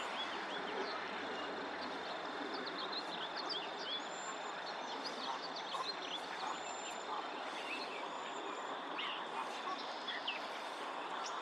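Small songbirds giving many short, quick chirps, with a few thin high whistles, over a steady background hiss.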